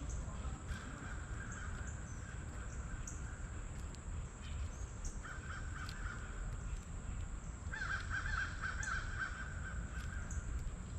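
A bird calling in three stretches: about two seconds near the start, a short bout midway, and the longest, with quick repeated notes, near the end.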